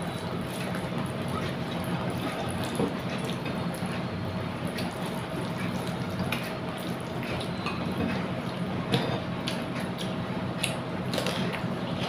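Wet eating sounds: chewing, smacking and small clicks from a person eating rice with fish curry, over a steady low hum.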